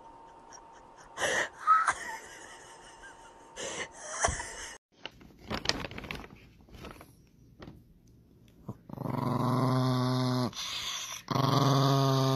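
A small Chihuahua-type dog growling: two long, steady, low warning growls, the second a little longer, in the last few seconds. Earlier there are a few short, sharp noises, the loudest less than two seconds in.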